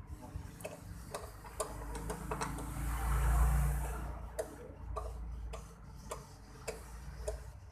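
Irregular light metallic clicks and ticks as an M5 tap, held in a drill press chuck, is turned by hand to cut a thread into an aluminium reel frame, with a low rumble swelling and fading about three seconds in.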